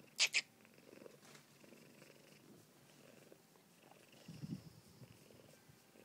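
Domestic cat purring steadily and fairly quietly, close up. Two sharp clicks come just after the start, and a short low bump about four and a half seconds in.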